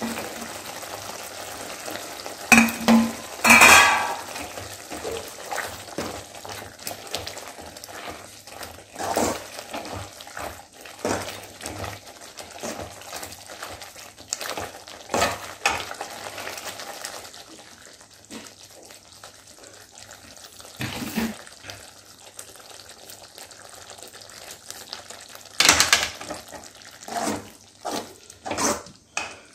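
Steel ladle stirring thick tomato gravy in an aluminium kadai on a gas burner: irregular scrapes and knocks of the ladle against the pan over a steady sizzle from the cooking gravy, loudest a few seconds in and again near the end.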